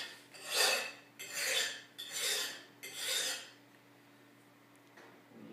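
Knife blade being sharpened on the rough, unglazed back of a ceramic tile: four rasping strokes about a second apart, stopping about three and a half seconds in.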